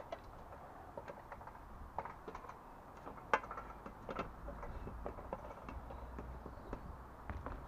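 Scattered light clicks and knocks from climbing an aluminium ladder and moving about on a felt shed roof, with one sharp click a little over three seconds in. A low wind rumble on the microphone comes up in the second half.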